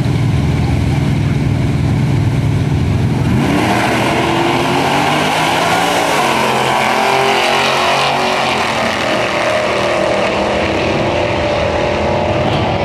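Two V8 drag cars, a 1981 Chevy Malibu wagon with a 406 small-block Chevy and a 1968 Chevelle, idling staged at the line, then launching about three and a half seconds in. Their engines rise in pitch as they accelerate away down the strip.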